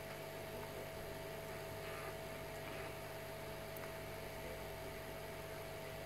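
Steady electrical hum with a faint, steady higher tone over light hiss. There are no taps or other events.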